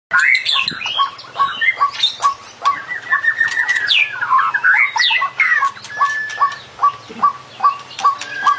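White-rumped shama (murai batu) singing loudly: a fast, varied run of whistles and rising and falling notes, over a steady string of short notes repeating about two or three times a second.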